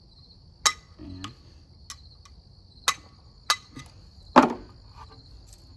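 Sharp knocks on parts of a CRT television chassis, four clear blows and a few lighter taps, the loudest about four seconds in, as parts are knocked loose. Crickets chirp steadily throughout.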